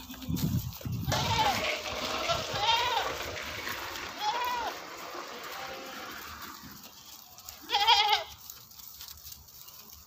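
Goats bleating: three short, arching bleats in the first half, then one louder, quavering bleat near the end. A low rumble sounds in the first second.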